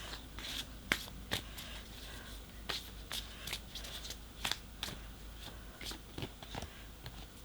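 Tarot cards being shuffled and handled, with irregular light flicks and taps of card against card.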